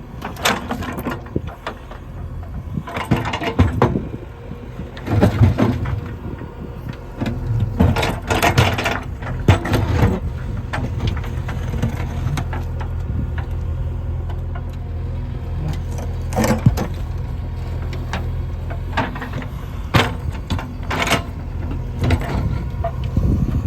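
JCB 3DX backhoe loader's diesel engine running steadily, with repeated sharp clatters and scrapes of the bucket working through stones and rock.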